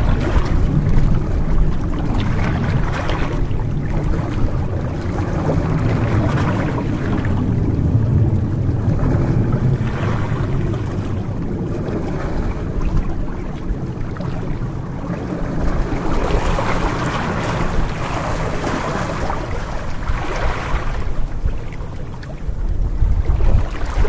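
Small waves lapping and splashing against shoreline rocks in a calm cove, washing in again every few seconds, over a steady low rumble.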